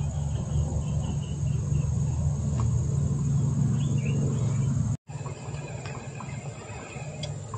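A steady, high-pitched chorus of insects over a low rumble; the rumble cuts off suddenly about five seconds in, leaving the insects over a quieter background.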